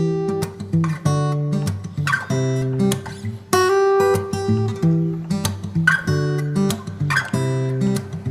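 Background music: acoustic guitar strummed in a steady rhythm of chords.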